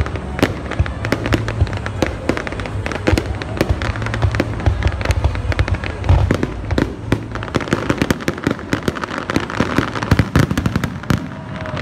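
Aerial firework shells bursting in a dense, rapid barrage: many sharp bangs and crackles close together over a continuous low rumble.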